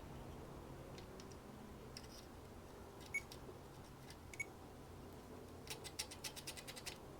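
Faint clicks and two short high chirps from a multimeter in continuity mode as its probes are touched to the engine's ignition breaker points, then a fast run of clicks near the end.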